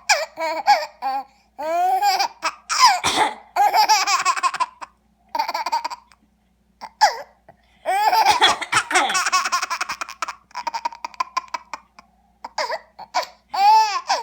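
Baby laughing in repeated high-pitched fits, broken by short pauses, set off by a person coughing.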